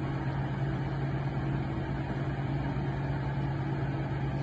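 Steady low machine hum with an even drone that does not change.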